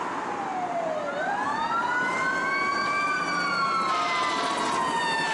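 Fire engine and rescue ambulance sirens wailing: two overlapping tones slide slowly up and down, one dropping low about a second in and then climbing again. A steady rumble of road traffic runs underneath.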